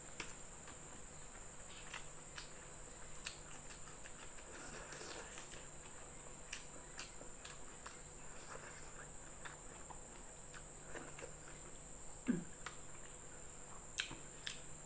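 Soft chewing and scattered mouth clicks of someone eating by hand, over a steady high-pitched background drone.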